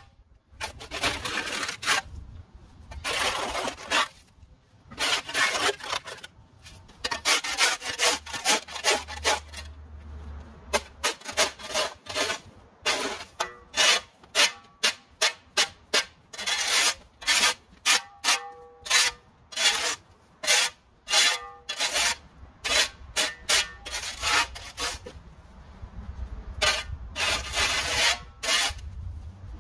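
Repeated scraping or sweeping strokes of a hand tool over a hard surface, in runs of quick short strokes broken by longer scrapes.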